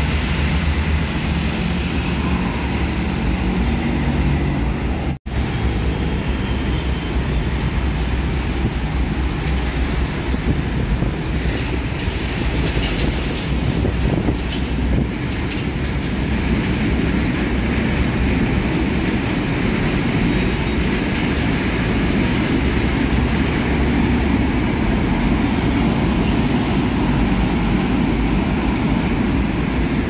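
Steady low rumble of heavy road traffic, which cuts out for an instant about five seconds in.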